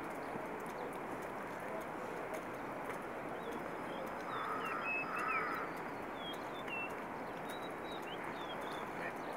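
Outdoor mountain ambience: a steady rushing noise, with small birds chirping repeatedly through the second half and a brief louder call about five seconds in.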